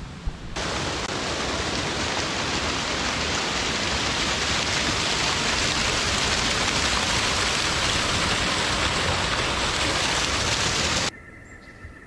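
A tall waterfall's falling water gives a steady, even rushing noise. The noise starts abruptly about half a second in and cuts off sharply about a second before the end.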